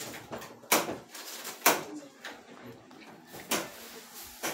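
Four sharp knocks, irregularly spaced about a second apart, the first two the loudest.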